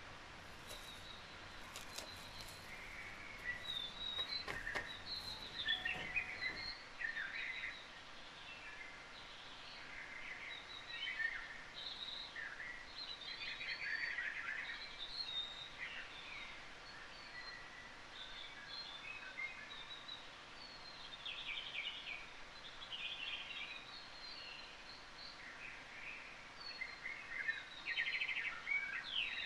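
Background nature-sounds track of many small birds chirping and singing in quick, overlapping calls over a faint steady hiss. A few clicks and crackles sound during the first six seconds.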